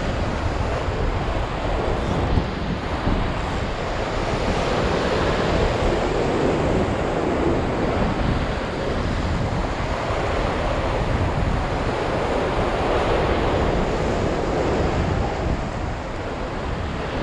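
Sea surf washing and breaking over a rock shelf, swelling and easing as the waves come in, with wind buffeting the microphone.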